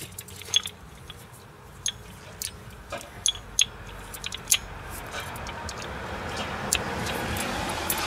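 Scattered light metallic clinks and ticks of hand tools on the brake parts, joined about five seconds in by a rushing noise that swells and holds.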